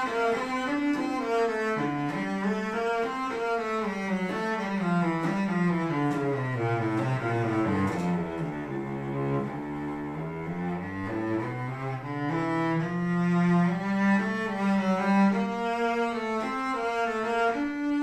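Solo cello played with the bow: a slow melody that steps down into the instrument's low register about halfway through, a little quieter there, then climbs back up to the higher notes.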